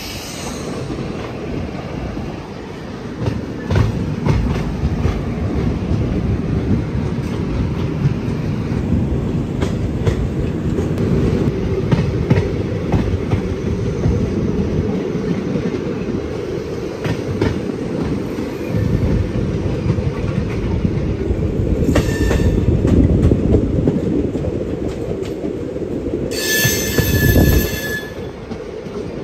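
Running noise of a passenger train heard from an open coach doorway: a steady rumble with wheels clattering over rail joints. A train horn sounds briefly about three-quarters of the way through and again for over a second near the end.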